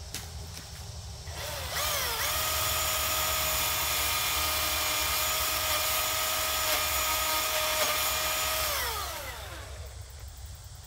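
Milwaukee M18 FUEL 14-inch cordless brushless chainsaw spinning up with a quick double rev, then running at a steady high whine for about seven seconds as it cuts a fallen branch. It winds down with a falling pitch near the end.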